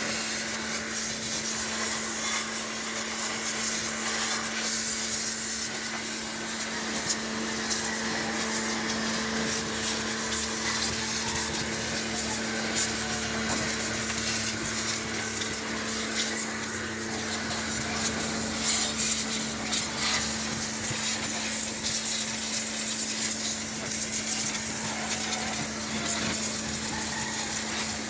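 Power sprayer (pressure washer) running steadily, its pump motor giving a constant hum under the hiss of the water jet blasting over an engine.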